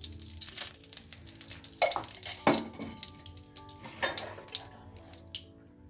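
A few sharp clinks of a spoon and utensils against a kadai and dishes, the loudest about two and a half seconds in, over a low hiss. Faint background music plays under them.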